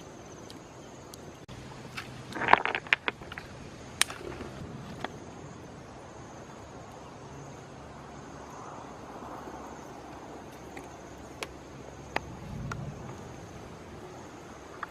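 Steady outdoor background hiss with a faint, high, steady tone. About two and a half seconds in comes a brief cluster of sharp crackles and rustles, the loudest moment, followed by a few scattered single clicks.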